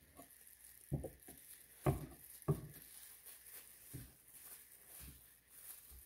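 Handling noise: a few soft knocks, three of them louder about one to two and a half seconds in, then a couple of fainter ones, as tools are put down and handled with gloved hands on the work table.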